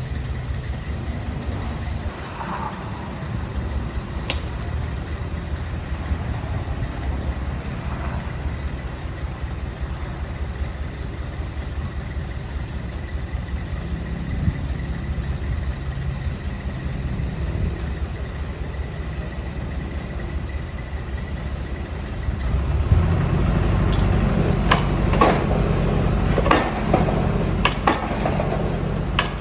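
Excavator engine running steadily under a low rumble. About two-thirds of the way through, it grows louder and a series of sharp metallic clanks and knocks follows.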